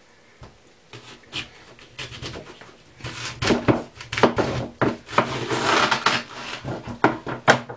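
A knife cutting through a small head of raw cabbage and its core on a wooden board: a run of crisp crunches and cracks as the leaves split, getting denser and louder about three seconds in.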